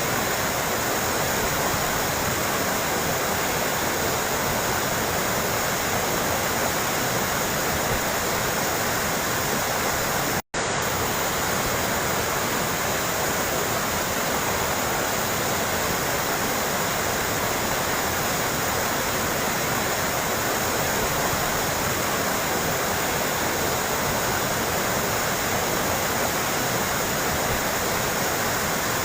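Steady splashing, trickling water, with no bird calls heard. It cuts out for an instant about ten seconds in, like a splice in a looped recording.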